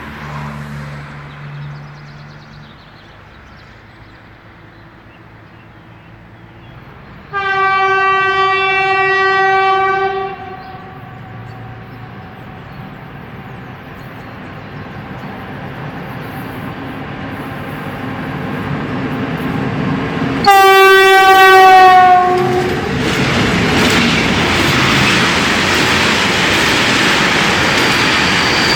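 Freight train locomotive horn sounded twice, a long blast of about three seconds and then a shorter, louder one that drops slightly in pitch at its end. The train then arrives and passes, the rumble of wheels on rails rising and staying loud, with a thin high whine near the end.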